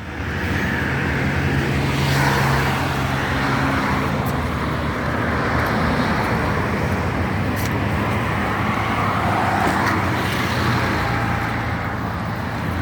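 Road traffic: cars going past with a steady low engine hum and a noise that swells and fades as each vehicle passes.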